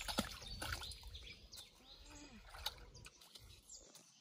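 Faint outdoor ambience: birds chirping with a low rumble and scattered short clicks.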